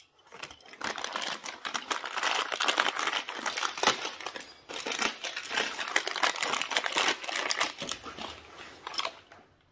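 Clear plastic parts bag crinkling and crackling as it is handled and opened, starting about half a second in and dying away near the end.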